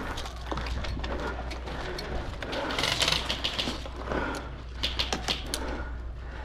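Airsoft guns firing: two short bursts of rapid clicking snaps, about three and five seconds in, with scattered single shots around them.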